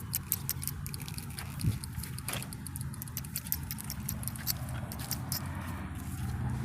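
A puppy's claws making many light, irregular clicks and patter as it moves about, over a low steady hum.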